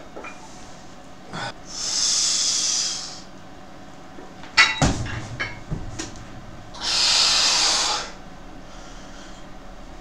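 Two long, forceful hissing exhalations a few seconds apart from a lifter straining through reps of a heavy incline dumbbell press, 45 kg dumbbells. Between them comes a quick cluster of sharp clinks and knocks from the plate-loaded dumbbells.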